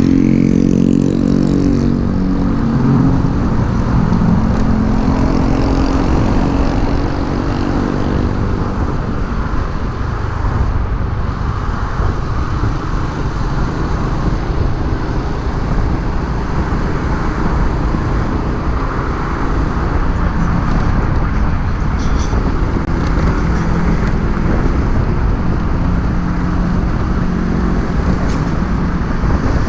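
Motorcycle engine running while riding, heard under a steady rush of wind and road noise. The engine note changes pitch in the first few seconds and comes through again more clearly in the second half.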